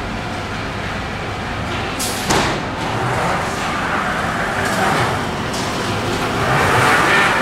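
Panel-processing machinery on a melamine MDF production line, running with a steady mechanical din. One sudden sharp, loud bang-like noise about two seconds in.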